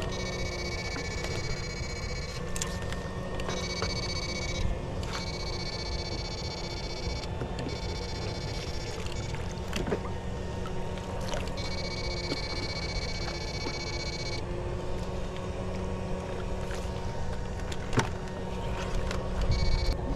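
Electric-fishing shocker whining at a high pitch, cutting in and out in spells of one to three seconds as it is switched on and off. A steady low hum and a few sharp clicks run underneath.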